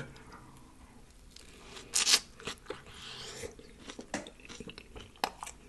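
Close-miked chewing of a birria pupusa: a run of short, wet mouth clicks and smacks, the loudest about two seconds in.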